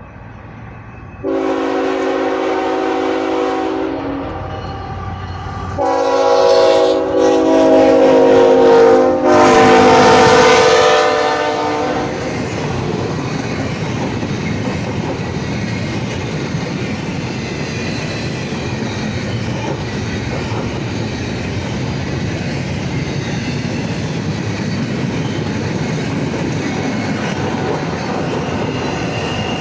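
Locomotive air horn on an NS ET44AC sounding a horn show: a blast of about three seconds, then a longer, louder run of blasts from about six to twelve seconds in, changing note partway. After that the freight train rolls past with steady wheel-on-rail noise and some clickety-clack.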